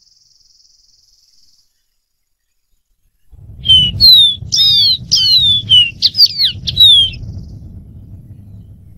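Dark-throated seedeater singing a short song of about ten quick, clear whistled notes, most sliding downward, lasting about three and a half seconds and starting a few seconds in, over a low rumble.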